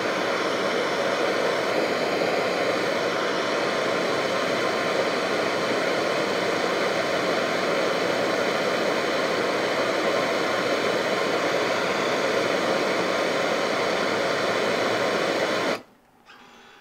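Handheld propane torch burning with a steady, even hiss as its flame plays on a nylon test bar. The hiss cuts off suddenly near the end.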